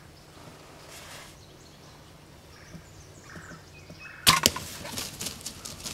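A bow shot at a wild turkey: a sudden sharp snap a little over four seconds in, then a quick, loud flurry of wing beats and scuffling from the hit bird.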